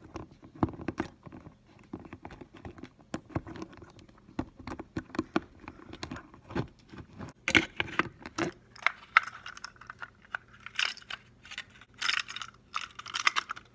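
Light clicks, taps and scrapes of small plastic and metal parts being handled and fitted on an HO-scale Athearn F7 model locomotive chassis, with rustling and scraping as the body shell is handled near the end.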